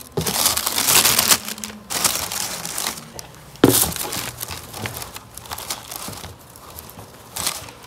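Packaging crinkling and rustling in irregular bursts as it is handled, with one sharp knock about three and a half seconds in.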